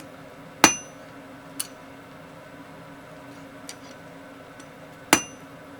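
Two sharp metal-on-metal strikes, each with a brief bright ring, about four and a half seconds apart, with a few faint clinks between them; a steady low hum runs underneath.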